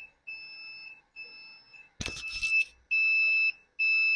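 Motorcycle turn-signal beeper sounding a high beep about once a second while the indicators flash with the ignition switched on. A short loud rustle or knock about two seconds in.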